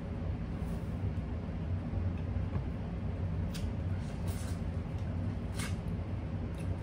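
Steady low hum with chewing and biting into corn on the cob over it, a few short wet mouth clicks about halfway through.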